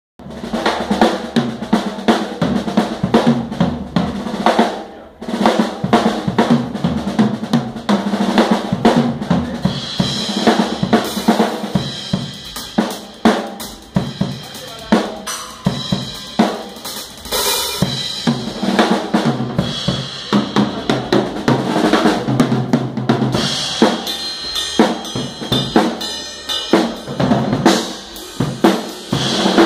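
Tama Rockstar drum kit played with sticks: a loud, busy run of fast snare, tom and bass-drum strokes with crashing cymbals, breaking off briefly about five seconds in.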